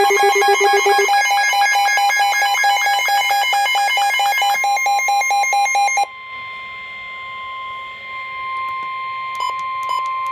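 Weather radio alert: a loud, rapidly pulsing electronic alarm of several tones, which about six seconds in gives way to a quieter steady single tone near 1 kHz. That steady tone is the NOAA Weather Radio warning alarm tone that comes before a warning is read out.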